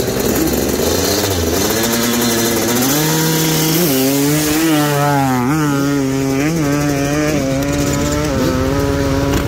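Dirt bike engine revving hard, its pitch climbing over the first few seconds and then held high with small dips.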